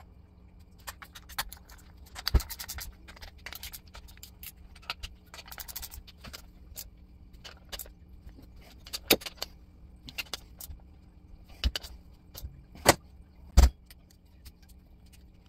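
Metal clicks and clinks of a small ratchet wrench working the bolts of a 4L60E transmission oil pump. Several louder knocks come in the second half as the pump is handled on the bench.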